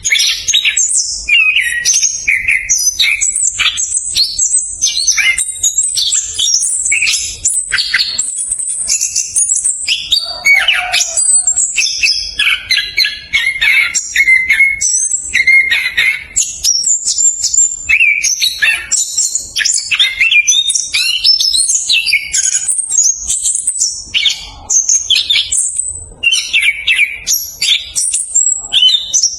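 Chestnut-capped thrush (anis kembang) singing a long, unbroken run of fast, tightly packed whistles and trills with no pauses between phrases: the rapid rolling song kept fanciers call "ngerol speed rapat".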